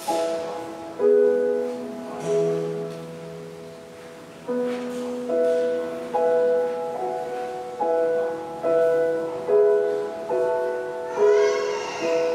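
Piano playing slow church music, a new chord struck about once a second and left to fade.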